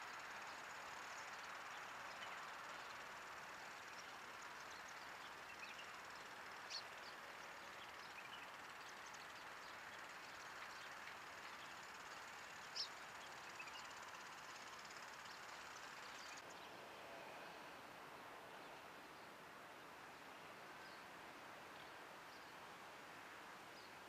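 Faint, steady outdoor background hiss. Two brief, sharp high ticks or chirps stand out, one about a quarter of the way in and a louder one about halfway.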